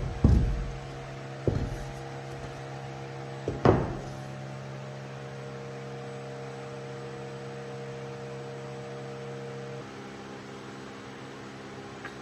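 Steady electric hum of idling CNC router machinery. Several low thumps come in the first few seconds as the cut MDF panel is handled, and part of the hum stops near the end.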